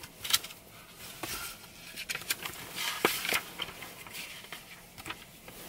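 Pages of a paper booklet being leafed through by hand: scattered soft rustles and page flicks.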